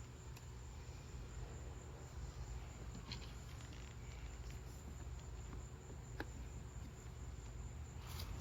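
Steady high-pitched chorus of insects, likely crickets, with two faint clicks about three and six seconds in.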